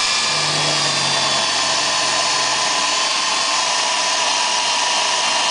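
Milwaukee 18-volt cordless drill running steadily under load, boring a hole through thick metal with a bit that isn't the sharpest: a continuous high motor whine.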